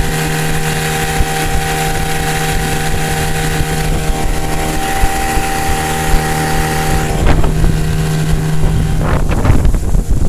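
An 8 hp outboard motor running steadily at speed, with water rushing along a small skiff's hull and wind on the microphone. The motor's steady tone drops away between about seven and nine seconds in, leaving mostly splashing water and wind.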